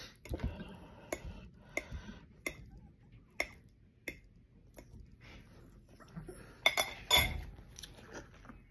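A fork clinking and scraping against dishes: scattered light clicks, with a louder run of clinks about seven seconds in.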